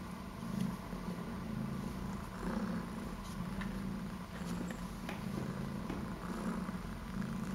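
Young domestic tomcat purring while being stroked, the low purr coming in pulses of about a second with short breaks between them.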